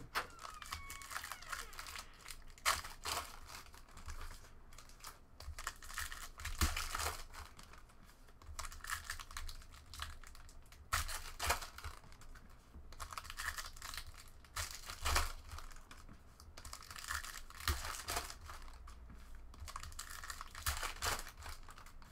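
Baseball card packs being torn open by hand, their shiny wrappers crinkling, then the cards being flipped through and stacked on a table with irregular rustles and light clicks of card on card.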